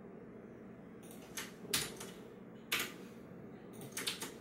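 Computer keyboard keys pressed in a few scattered, uneven clicks, two of them louder.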